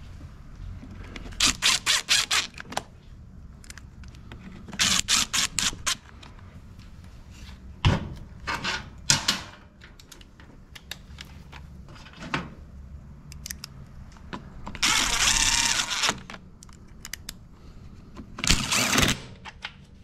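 Power driver running screws into a mower engine's cover in several short bursts, each a quick run of strokes, with one longer steady run of about a second near the three-quarter mark and a few single knocks between.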